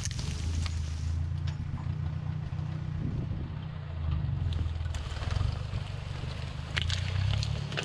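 An engine running steadily at a low, even pitch, with scattered clicks and knocks over it, a cluster of them near the end.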